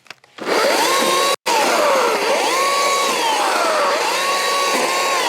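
Small electric chainsaw cutting wood: the motor whine climbs quickly to a high steady pitch, then sags lower as the chain works the cut, three times over.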